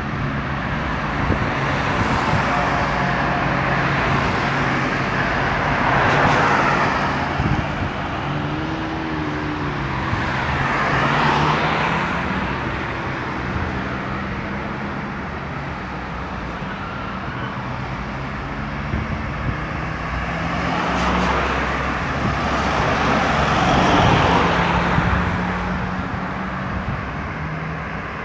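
Road traffic: cars passing one after another, three louder passes swelling and fading, over a steady low engine hum.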